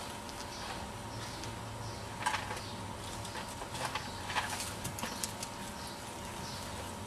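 Small birds chirping faintly and repeatedly in the background, with a few short breathy bursts and scuffs near the middle from a bull terrier panting and shifting on asphalt.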